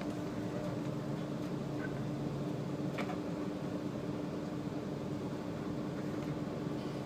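Steady hum of a SOR NB 12 City city bus standing in traffic with its engine idling, heard from the driver's cab, with a single faint click about three seconds in.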